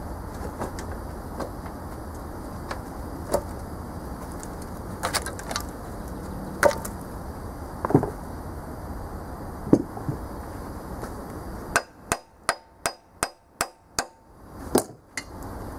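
Hammer blows on the cast-iron cylinder head of a rusted Chevy 305 V8, struck to break it loose from the block: a few spaced knocks, then a quick run of about eight strikes near the end.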